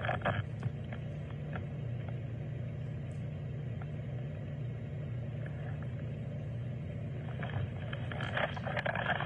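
Steady low rumble from body-camera footage being played back, with scattered clicks and muffled sounds that pick up near the end.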